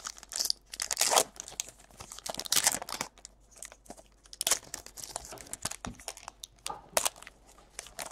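Trading card pack wrapper crinkling and tearing open, with cards rustling and snapping as they are flipped through in the hands. It comes as an irregular run of crisp rustles and short snaps.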